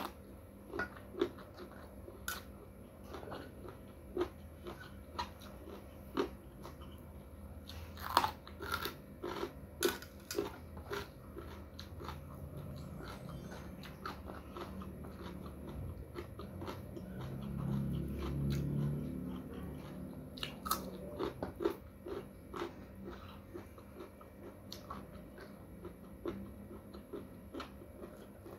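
A person biting and chewing crunchy raw lalap vegetables, starting with a bite of green chili: sharp crunches at irregular intervals between quieter chewing, with a low hum partway through.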